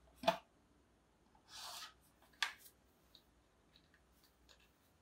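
Whiteboard marker drawing a line along a ruler on a whiteboard: a sharp click against the board shortly after the start, a short scratchy marker stroke about a second and a half in, then another sharp click, with a few faint ticks between.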